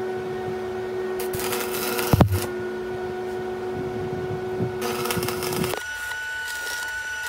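Background music of held, ringing tones that change to a higher note about six seconds in. Two short bursts of hissing crackle and a sharp click come through about two seconds in and again around five seconds in.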